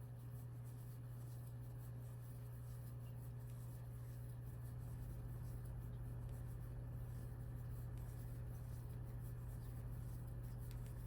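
A steady low hum, getting a little louder about five seconds in, under faint scratching and light ticks of a crochet hook working yarn through single crochet stitches.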